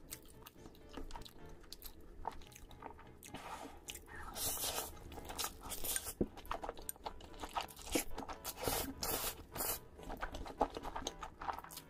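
Close-miked eating: a person slurping spicy instant noodles coated in cheese sauce and chewing them, with wet smacking clicks. Louder slurps come about four seconds in and again near nine seconds.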